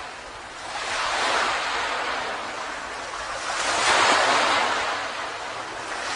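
Ocean waves breaking on a beach: surf that swells and fades, with two waves about three seconds apart.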